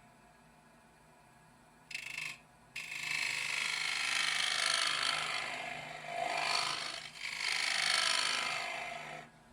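Turning tool cutting a spinning wooden bowl on a lathe: a brief touch about two seconds in, then a long scraping cut from about three seconds that swells twice and stops just before the end, over the lathe's steady low hum.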